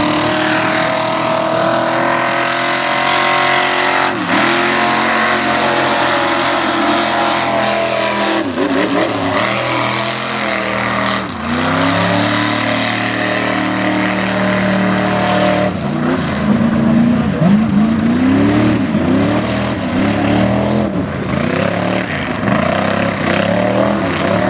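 Mega mud Jeep's engine revving hard under load in the mud, its pitch dropping sharply and climbing again several times, then swinging up and down in quicker blips in the second half.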